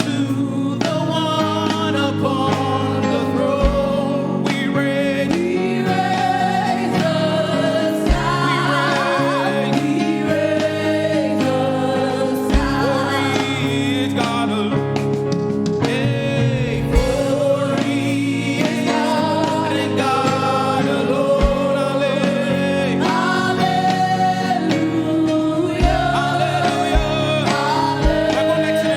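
Gospel praise-and-worship music: voices singing a melody together over steady instrumental backing.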